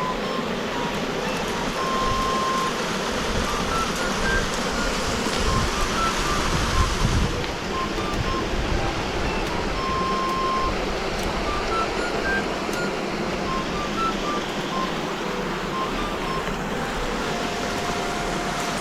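Background music, a simple melody of short single notes, over the steady rush of a mountain stream.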